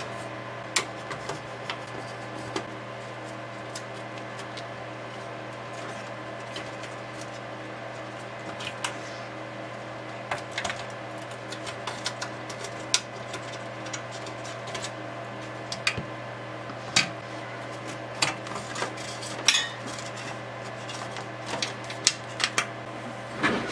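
Scattered light clicks and taps of hands handling the metal chassis and front-panel display board of a Kurzweil K2000R rack synthesizer, over a steady low hum.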